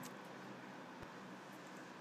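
Faint steady hiss of a recording microphone in a quiet room, with one faint short tick about a second in.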